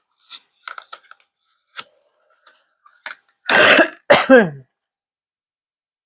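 A person coughs or clears her throat twice, the second time voiced and falling in pitch, after a few light clicks and taps.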